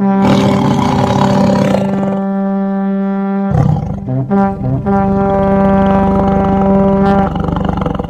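Background music: two long, steady horn-like notes held on the same low pitch, the first about three and a half seconds, the second nearly four, with a brief break between them.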